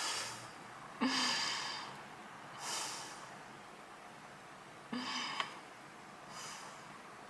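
A woman making mock crying sounds: two short sobbing breaths out, about a second in and again about five seconds in, each followed by a sniffing breath in.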